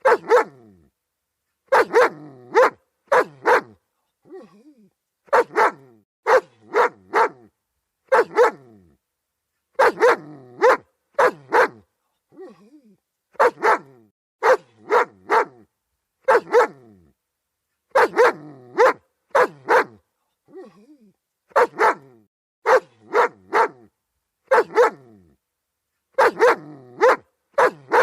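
German Shepherd barking over and over, in quick runs of two to four loud barks every couple of seconds, with fainter, shorter calls in some of the gaps.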